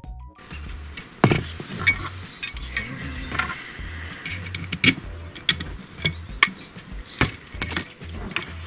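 Steel parts of a boat seat stand clinking and knocking against each other as they are fitted together by hand, in sharp irregular strikes, the loudest a bit over a second in and several more from the middle to near the end.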